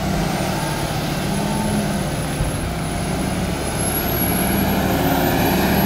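Fendt tractor's diesel engine running under load while it pushes chopped grass silage with a front-mounted blade, with a thin high whine that rises shortly after the start and then holds. The engine grows a little louder toward the end as the tractor approaches.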